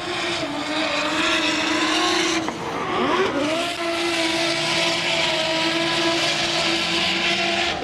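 Drift cars, a BMW M3 and a Nissan 200SX, held at high revs through a slide, with tyres screeching. The engine note stays at a steady pitch, drops and climbs back about three seconds in, then holds steady again.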